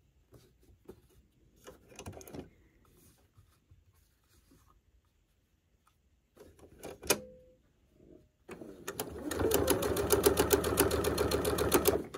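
Domestic electric sewing machine stitching a seam through quilting cotton, a fast even run of stitches for about three and a half seconds that stops abruptly near the end. Before it, faint rustling of fabric being lined up and one sharp click.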